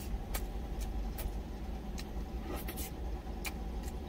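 Steady low rumble of the truck's idling engine, with short sharp clicks of eating and chewing every half second or so.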